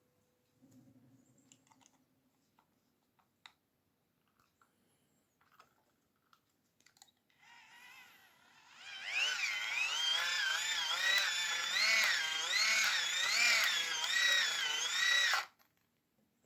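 Small electric motor used as a hand-cranked generator, whining as its crank is turned to charge the torch's capacitor. The pitch rises and falls with each turn, and the sound cuts off suddenly. A few faint clicks of handling come before it.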